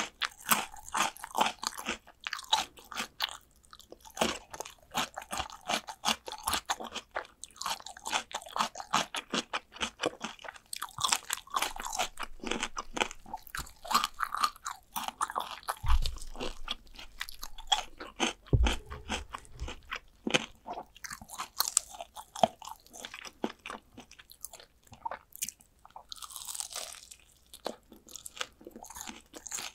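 Close-miked crunching and chewing of crispy fried chicken drumsticks: dense, rapid crackles of batter breaking between the teeth, with two dull low thumps in the middle.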